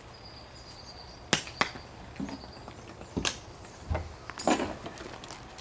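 Several sharp clicks and knocks of objects being handled, irregularly spaced, the loudest a short rushing clatter about four and a half seconds in.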